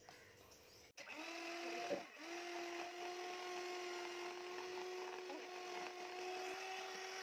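A 300-watt electric hand mixer beating raw eggs in a plastic bowl: a steady motor whine with the beaters whirring through the liquid. It switches on with a click about a second in and briefly dips about two seconds in.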